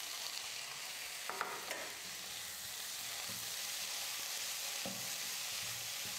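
Sliced onions and tomato pieces sizzling faintly in oil in a non-stick kadai, stirred with a wooden spatula, with a few light clicks and soft knocks as the spatula works the pan.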